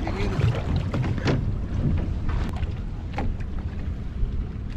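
Steady low rumble of a small fishing boat at sea, with wind on the microphone and water against the hull. A few brief knocks come through about a second in and again near the middle.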